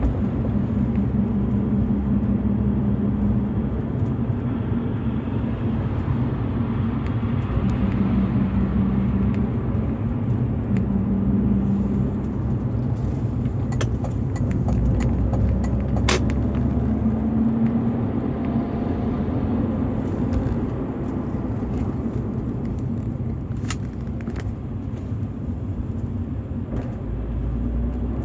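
BMW E46 320i's M52TU 2.0-litre straight-six engine running on its stock exhaust, a steady low rumble with a few faint rises in pitch.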